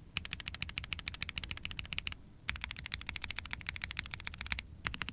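Typing on an ai03 Vega mechanical keyboard with Zepsody Bluebonnet linear switches, a POM plate and GMK keycaps: rapid, even keystroke clacks in three runs, with short pauses between.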